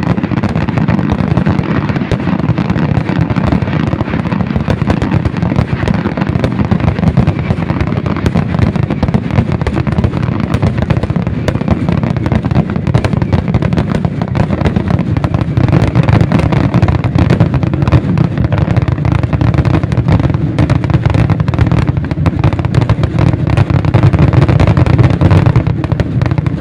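Fireworks barrage: a dense run of rapid bangs and crackles over a continuous low rumble, loudest in the second half and easing off at the very end.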